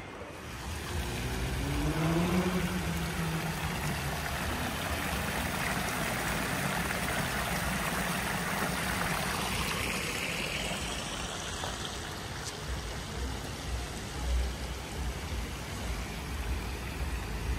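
Water from a tiered fountain splashing into its basin, a steady hiss that swells as it is approached and fades after about ten seconds as it is left behind.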